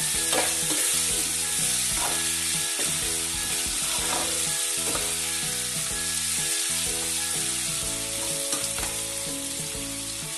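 Sliced onions, whole coriander seeds and dried red chillies sizzling in hot oil in a frying pan, stirred with a metal spoon that scrapes and knocks against the pan now and then. The stirring stops near the end while the sizzling goes on.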